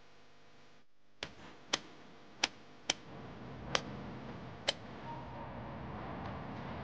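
Handheld tally counter clicked six times at uneven intervals, each a short sharp click, over low street background noise.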